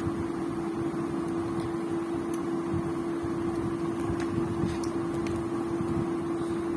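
Digital multimeter's continuity beeper sounding one steady, unbroken tone as its probes sit across a MOSFET's pins, with a few faint ticks from the probes. The beep means the pins are shorted together internally: the MOSFET is damaged.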